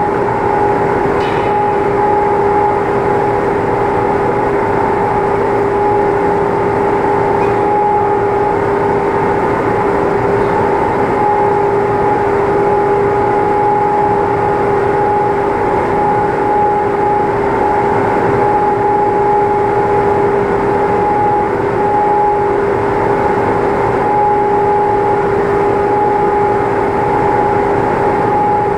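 A machine running steadily, with a constant hum and a steady whine over it that never changes.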